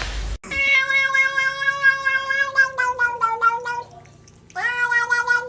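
A cat giving long drawn-out meows held at a steady pitch: one long call of about three seconds that breaks into short wavering steps at its end, then after a short pause a second long call starting about four and a half seconds in.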